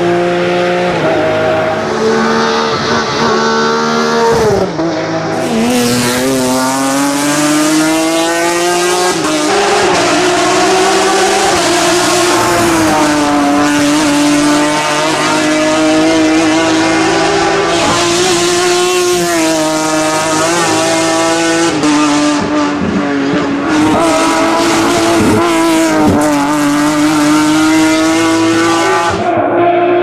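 BMW E36 M3 hillclimb race car's 3.2-litre S54 straight-six engine run hard, its pitch climbing through each gear and dropping sharply at the shifts and lifts for corners.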